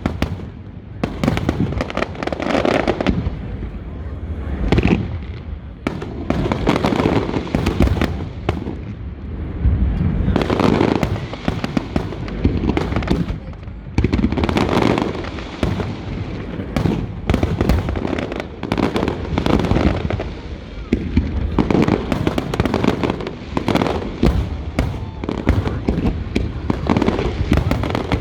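Fireworks display bursting: many bangs and crackles in quick succession, coming in swelling clusters with no real pause.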